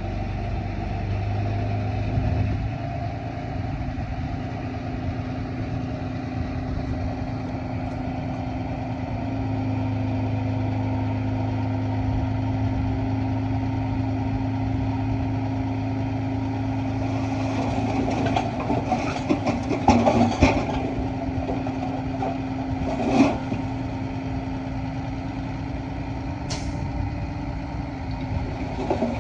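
Heavy diesel engine of earthmoving machinery running steadily, working a little harder about a second in and again about 9 seconds in. Bursts of clatter and knocks come in the second half, with a sharp knock near 23 seconds.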